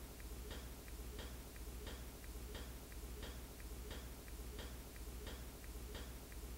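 Faint clock ticking, an even tick-tock of about three ticks a second, over a low steady hum.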